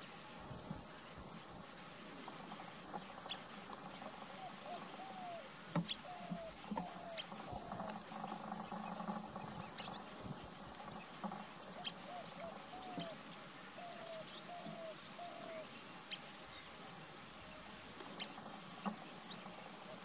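A steady, high-pitched chorus of insects shrilling without a break. Faint short whistled notes come in small runs of two or three, mostly in the first half and again about two-thirds of the way through.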